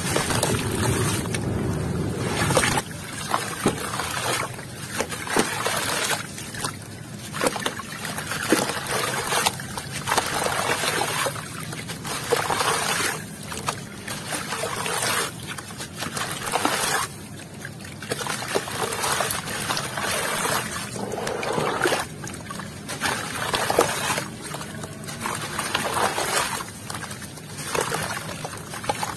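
Hands crumbling and squeezing soaked sandy lumps over a tub of water: gritty crunching in irregular bursts, with grains and pieces splashing and trickling into the water.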